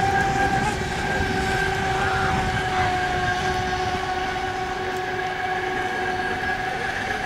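Radio-controlled racing speedboat running at speed, its motor giving a steady high-pitched whine that dips a little in pitch partway through.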